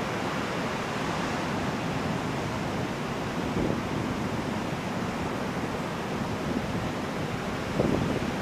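Ocean surf breaking and washing up a beach, a steady rush of noise with a brief louder surge near the end.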